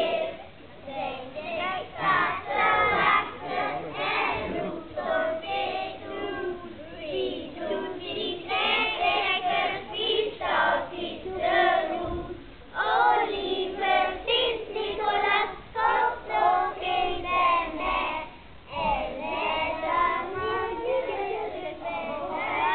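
A large group of children singing a song together in unison, with two brief pauses between lines.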